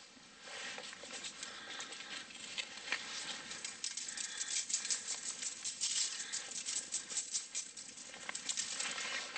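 Seasoning being shaken onto a raw ribeye steak on aluminium foil: a steady patter of fine grains hitting the meat and the foil.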